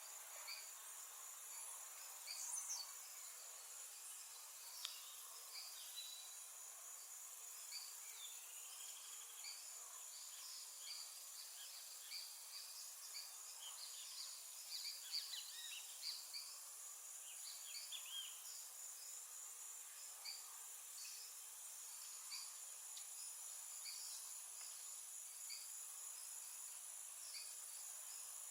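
Tropical forest ambience. A steady high-pitched insect trill runs throughout, with many short bird chirps and calls scattered over it, busiest around the middle.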